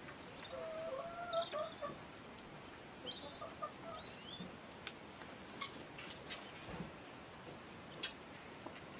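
Domestic hens clucking quietly, with a few high chirping calls in the first half. Several sharp clicks follow in the second half.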